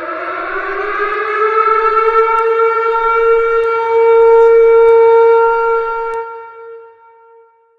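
Civil defense siren sounding a nuclear attack warning: its tone winds up in pitch over the first few seconds, holds steady and loudest about four to five seconds in, then dies away about six to seven seconds in.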